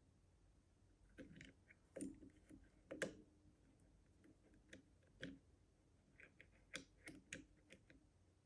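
Faint, irregular metallic clicks and taps of a lever-lock pick working inside an Easi-T lever lock, lifting and setting the levers. They start about a second in, with the sharpest clicks near two, three, five and seven seconds.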